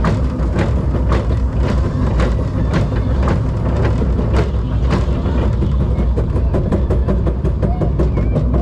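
Zierer Force Two family coaster train running along its steel track: a steady low rumble with regular clacks about twice a second, turning into quicker, fainter clicks in the second half.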